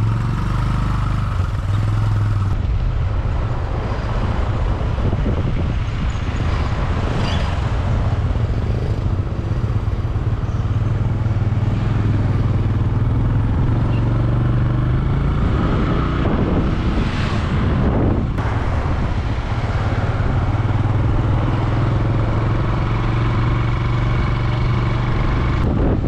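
Motorcycle engine running steadily while riding along the road.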